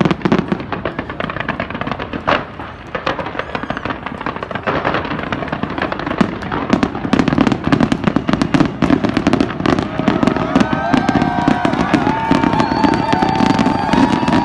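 Aerial fireworks display: rapid bangs and crackling that grow denser about halfway through, with high whistling tones joining in about ten seconds in.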